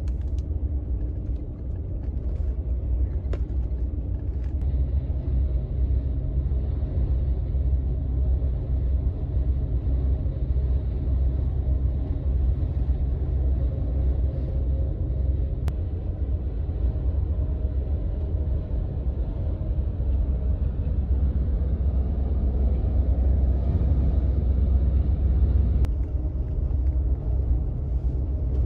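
Steady low rumble of a double-decker highway bus cruising on an expressway, heard inside the cabin: engine and road noise. A steadier low hum joins for about ten seconds from around five seconds in, with a few faint clicks.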